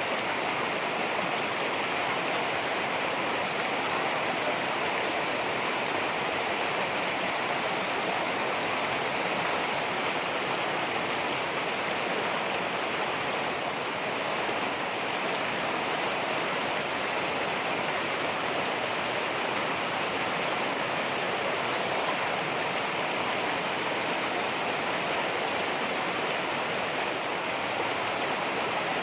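Water rushing over rocks, a steady unbroken rush.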